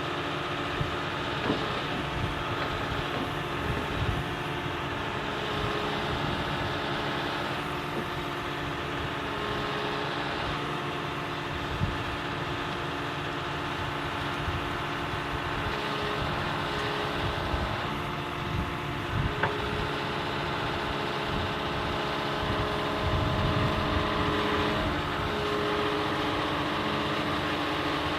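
Excavator diesel engine running steadily while the boom and bucket are worked. A higher hydraulic whine comes and goes several times, and a few sharp knocks and clunks come from the bucket and linkage.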